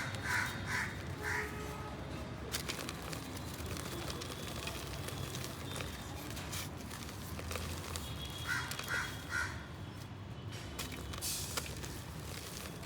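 A crow cawing, three quick caws near the start and three more about eight and a half seconds in, over scattered crunches and crackles of dry clay crumbling.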